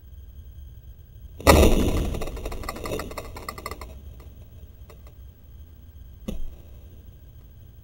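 Traditional bow shot: the string is loosed about a second and a half in with a sudden loud snap that dies away over about two seconds. A single short knock follows a little after six seconds in.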